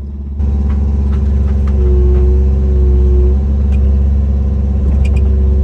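Diesel engine of a John Deere compact earthmoving machine running steadily, getting louder just after the start. A higher whine comes in for about a second and a half around the middle.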